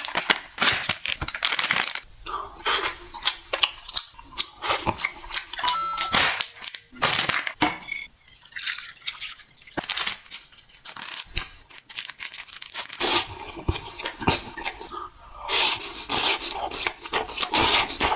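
Close-miked ASMR eating sounds: irregular crunching and chewing, with wet mouth clicks. A short beep sounds about six seconds in.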